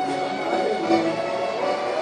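Background music with sustained pitched notes.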